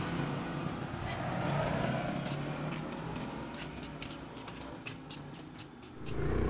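A motor vehicle engine running steadily in the background and fading away, with a quick run of light clicks and ticks over it. A louder, lower steady hum sets in near the end.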